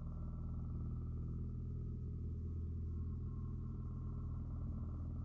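Fine-silver spinning top spinning on its black glass spinning base, a steady low whirring hum with a fast, even flutter.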